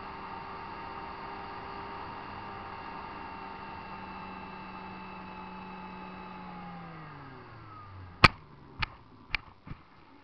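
RC seaplane's motor and propeller running at a steady pitch, then winding down as the throttle is cut near the end. A sharp slap follows, then three smaller ones, as the plane touches down on the water.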